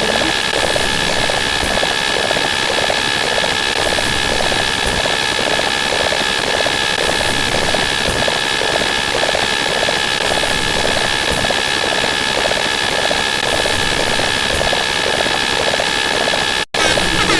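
A loud, dense wall of layered sound effects. It is a noisy mix with steady high whistling tones and a fast repeating pulse underneath. It cuts out for a split second near the end.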